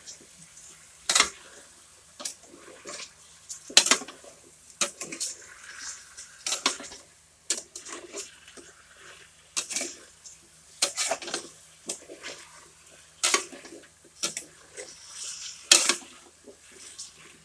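Kitchen clatter: dishes, pots and utensils clinking and knocking at irregular intervals, with brief splashes of water.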